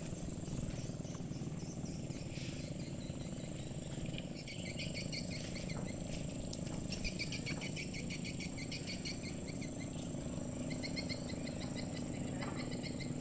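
Outdoor riverside ambience: a steady high-pitched insect buzz, with two runs of rapid repeated chirping from insects or birds, over a low steady rumble.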